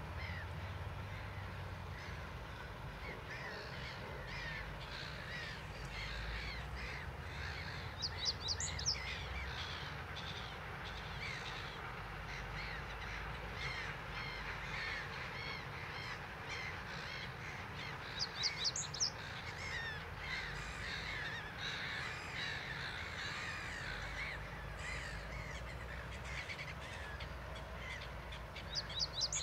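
Male reed bunting singing its short song, a brief phrase of a few quick high notes, three times about ten seconds apart. A constant chatter of many other birds and a low rumble run underneath.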